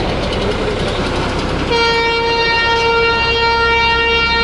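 Small local passenger train running as it pulls into the station, with a steady rumble and rattle. A little under two seconds in, a train horn begins one long, steady blast.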